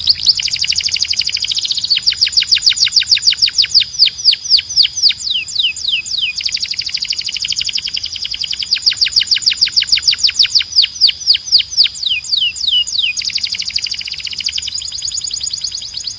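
Canary singing: long runs of rapid, evenly repeated downward-sweeping whistled notes, several a second, broken into phrases with short held high notes between them.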